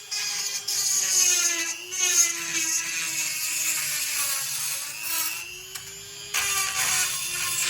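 Handheld electric power tool running, its motor whine wavering up and down in pitch. It eases off briefly about five and a half seconds in, then picks up again.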